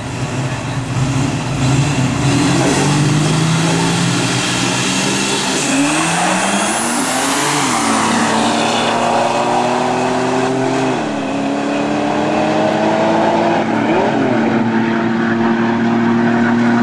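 A V6 street car and a supercharged Cobra rev at the line, then launch and accelerate hard away. Engine pitch climbs through the gears, dropping at three upshifts roughly eight, eleven and fourteen seconds in, with a high whine rising as they first pull away.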